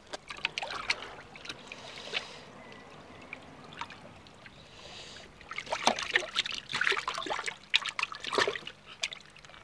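Water splashing and dripping in a shallow plastic bowl as a koi is held and turned over by hand. There is a short flurry of splashes at the start, then a longer, louder one from about the middle to near the end.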